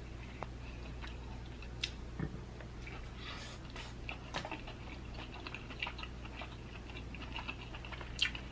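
Soft chewing of king crab meat, with a few sharp clicks scattered through.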